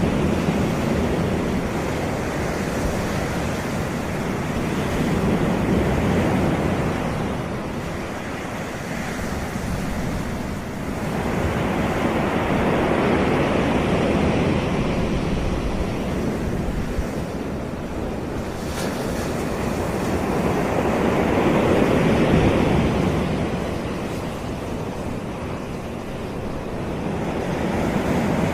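Caribbean surf breaking and washing up a sandy beach, rising and falling in slow swells every six to eight seconds.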